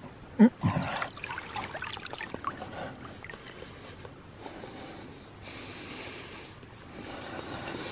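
Lake water gurgling and sloshing against a camera held at the water's surface, with a loud bubbling gulp about half a second in, crackling splashes after it, and a rushing hiss of water later on.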